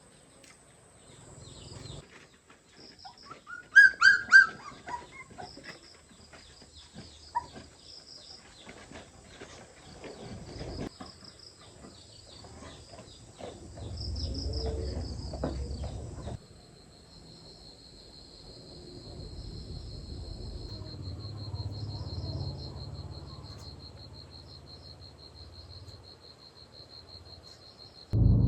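Countryside ambience: a few short, loud animal calls about four seconds in, with small high chirps through the first half. After an abrupt change about halfway through, a steady rapid insect trill runs over low rumbling noise.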